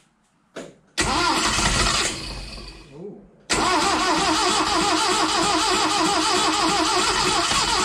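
Starter cranking a 1970 Datsun L16 inline-four: a short burst about a second in, then longer steady cranking with an even pulse from about three and a half seconds. The engine turns over but does not run. The owner thinks it wants to start and suspects it is short of fuel, with a fuel pump that may not work.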